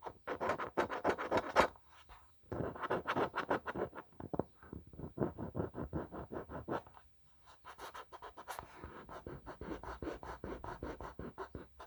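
Rapid scratching strokes on the 15-inch speaker, as glue gunk is scraped off it, in four runs of a couple of seconds each with short pauses between.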